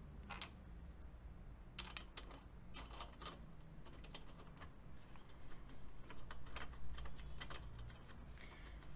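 Light, irregular metallic clicks and taps as an aluminium frame slider and its Allen bolt are fitted and turned by hand onto the threaded end of the engine's slider shaft, over a faint steady low hum.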